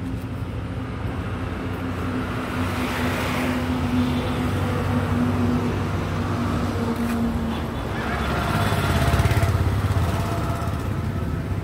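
Road traffic: a steady engine hum, with vehicles going by, swelling up and fading away about three seconds in and again near the end.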